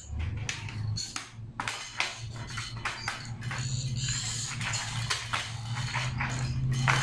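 Hand pop-rivet gun being squeezed again and again, its handles and jaws clicking and clanking as it sets a rivet through a wire-mesh screen and a plastic lid, at an uneven pace of about two clicks a second. A steady low hum runs underneath.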